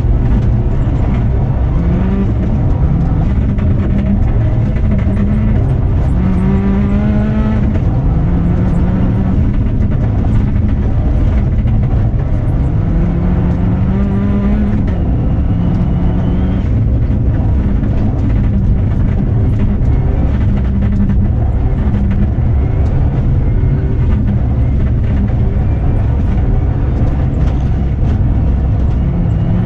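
Subaru Impreza N11 rally car's turbocharged flat-four engine heard from inside the cabin under hard acceleration, its pitch climbing and dropping back as it shifts up through second, third and fourth gears. A steady low rumble runs underneath.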